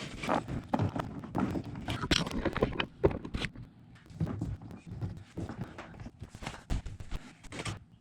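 Irregular clicks, knocks and clatter of parts and tools being handled while the dishwasher's water supply hose is fitted, busiest over the first few seconds and sparser after.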